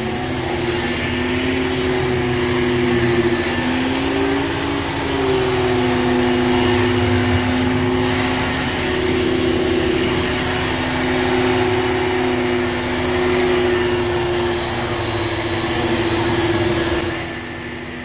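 Hoover Supremacy canister vacuum cleaner running, its powered nozzle working over carpet: a steady motor drone with a humming whine that wavers slightly in pitch about four seconds in. The sound dips briefly near the end.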